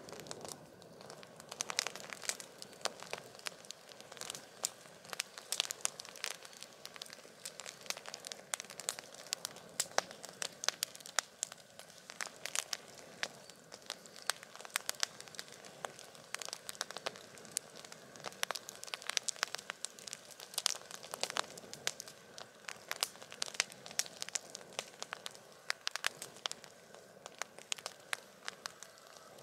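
Wood campfire crackling: irregular sharp pops and snaps, several a second, over a steady soft hiss.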